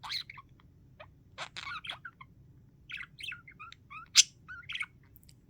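Budgerigar chattering: a loose string of short chirps, warbles and clicks, with one sharper, louder squeak about four seconds in.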